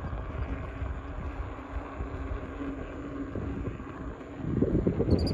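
Wind rumbling on the microphone outdoors, with a faint steady hum underneath; the rumble grows much louder about four seconds in, and birds begin chirping right at the end.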